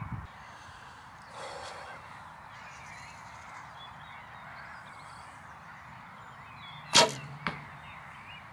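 A recurve bow shot: one sharp, loud snap of the string on release about seven seconds in, followed about half a second later by a softer knock.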